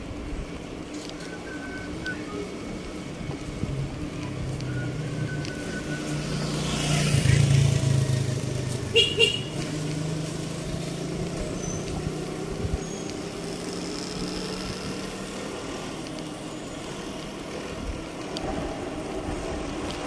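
Street traffic with a steady low engine hum. A motor vehicle passes close about seven seconds in, and two quick high-pitched beeps follow about nine seconds in.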